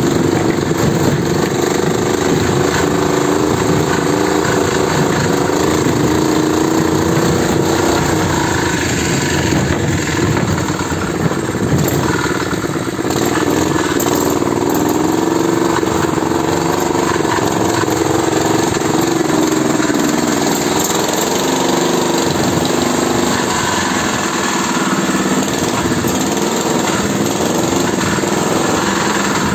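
Engine of a homemade tractor running steadily, its pitch wavering slightly up and down.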